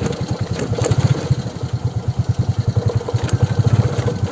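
Motorcycle engine running with a steady, fast low pulsing from its exhaust.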